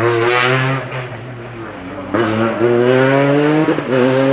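Rally car engine accelerating hard, its pitch climbing through the revs and dropping at gear changes about a second in and again near the end.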